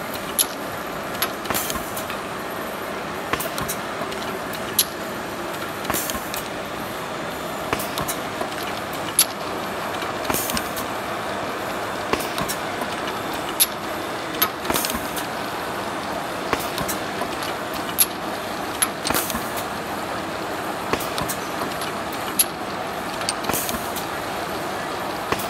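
Hunter Model 305 liquid filling machine with MKII liquid nozzle running steadily while filling small bottles with water. A sharp click about every four and a half seconds and a short hiss about a second after each mark the repeating fill cycle.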